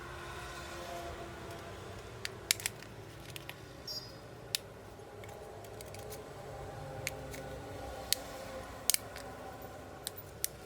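Scattered sharp clicks and small snaps of hand tools working on a smartphone's parts, about a dozen at irregular intervals, over a steady low background hum.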